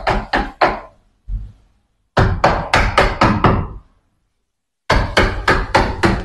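A hammer striking the handle of a wood chisel, about four sharp knocks a second in short runs with pauses between. The chisel is cutting the recess for a lever door handle's latch faceplate into the wooden edge of a door.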